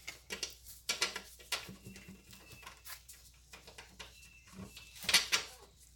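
Scattered light clicks and taps of bolt hardware being handled and fitted through a bracket hole, with a sharper clatter about five seconds in.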